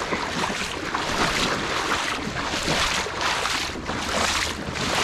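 Wader-clad legs pushing through knee-deep river water, sloshing and splashing with each stride, about once a second.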